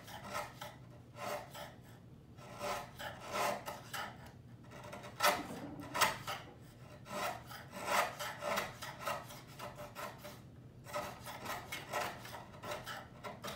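A hand tool scraping wood in a series of short strokes at an uneven pace, with a brief pause about ten seconds in: a tenon being trimmed down a little at a time to fit its mortise.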